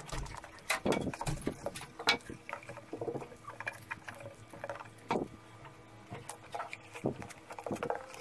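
Scissors snipping lace trim, then a thin plastic shampoo bottle and lace rustling, crinkling and tapping in irregular short sounds as they are handled on a tabletop.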